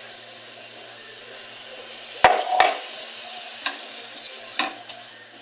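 Sugar sizzling steadily in a hot frying pan as it is stirred. A spoon knocks against the pan a few times, loudest about two seconds in.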